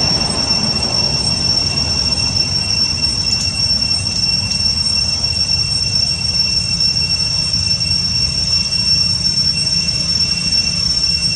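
Steady high-pitched insect drone, two unchanging whining tones, over a constant low rumble.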